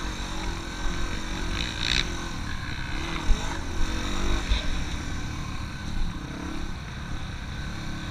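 Dirt bike engine running while the bike is ridden across sand, its pitch rising and falling with the throttle, with a few brief thumps.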